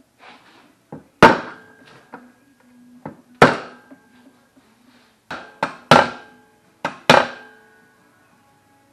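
Hammer blows on a metal rod clamped in a steel bench vise: a string of sharp strikes at uneven intervals, the four heaviest each followed by a short metallic ring.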